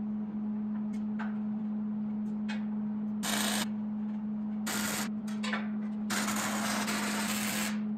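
A steel square-tube table leg is shifted and scraped against the steel frame and plate in a few hissing scrapes, one short one about three seconds in, a brief one a little later and a longer one near the end. A steady low machine hum runs underneath.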